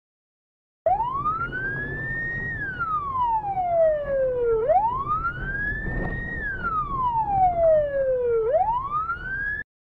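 Police car siren on a slow wail, its pitch rising and falling in about two and a half cycles of roughly four seconds each, over a low rumble. It starts and cuts off abruptly.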